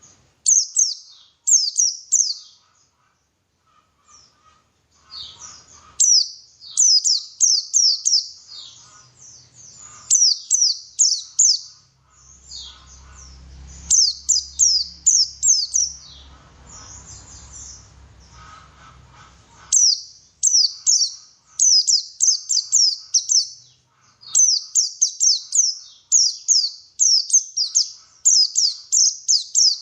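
White-eye (pleci) song: quick phrases of high, rapidly repeated falling chirps, broken by short pauses.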